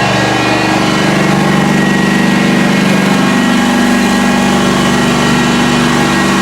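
A fire engine's motor running steadily at a raised idle, a deep even hum that shifts slightly in pitch about three seconds in.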